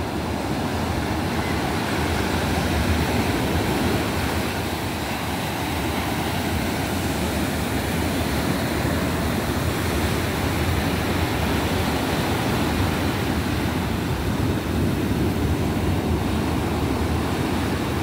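Ocean surf breaking and washing up onto a sandy beach: a steady rushing noise.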